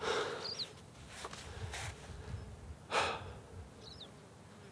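A man breathing out hard twice, once at the start and more loudly about three seconds in, with softer breaths in between. Two faint, short, high chirps fall between the breaths, over a low wind rumble on the microphone.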